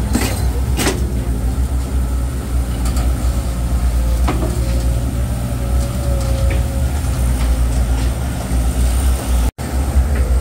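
Heavy diesel engine running steadily close by, a low even rumble, with a couple of sharp knocks in the first second.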